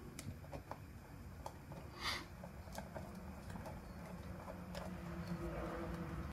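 Faint, scattered clicks and light taps of small metal carburetor parts and hand tools being handled on a workbench, with a brief rustle about two seconds in, over a steady low room hum.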